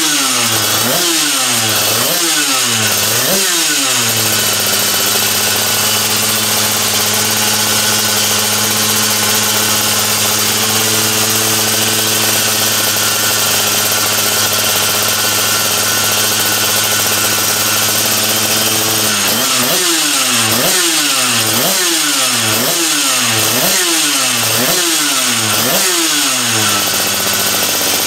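Division 1 Superkart's 250cc two-stroke twin engine running on a dyno while being warmed up to temperature. It is blipped about once a second for the first few seconds, held at a steady speed for about fifteen seconds, then blipped about once a second again near the end.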